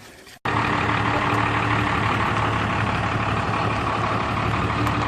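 An engine idling steadily, starting abruptly at a cut about half a second in.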